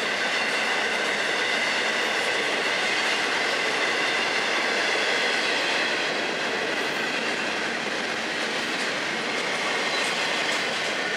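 Florida East Coast Railway intermodal freight cars rolling steadily past: the constant rumble and rattle of steel wheels on rail, with a thin, high wheel squeal running through it.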